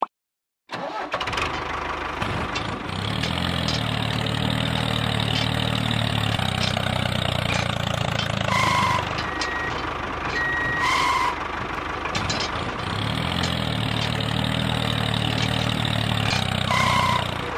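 A vehicle engine sound starts abruptly about a second in and runs steadily, its pitch wavering slightly. Short high beeps sound a few times: about halfway through and again near the end.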